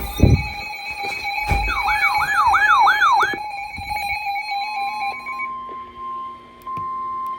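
An electronic siren wailing up and down about five times over steady electronic tones, with two low thumps early on, all cutting off about five seconds in. A steady single high alert tone follows, the weather-radio warning alarm tone that comes before an emergency alert.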